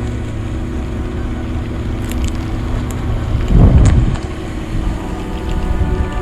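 Boat outboard motor running steadily on the water, with a brief loud rush of wind or water about three and a half seconds in.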